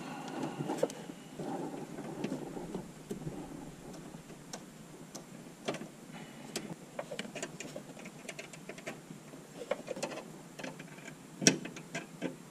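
Hands working behind a van's dashboard: scattered light clicks and knocks of plastic and metal parts and wiring connectors being handled, with rustling in the first few seconds and one sharper knock near the end.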